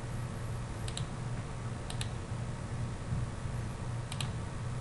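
Computer mouse clicking three times, each a quick double click of press and release, over a steady low hum.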